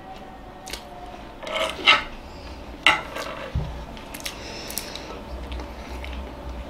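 A few sharp clicks and knocks against a plate as a peeled boiled egg is picked up from it, the loudest two about a second apart, followed by faint handling sounds.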